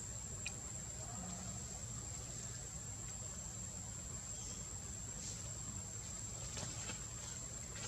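Insects buzzing steadily on one high pitch over a low background rumble, with a few faint clicks in the second half.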